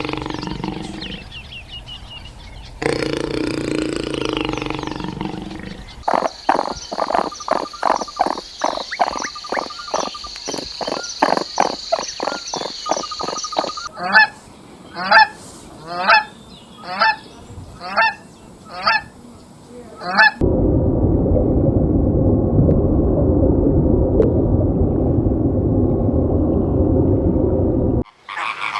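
A sequence of separate animal-call recordings, one after another. About six seconds in comes a fast run of short pulses. Around the middle there are about seven honking calls roughly a second apart, then a low, steady rough noise that cuts off suddenly near the end.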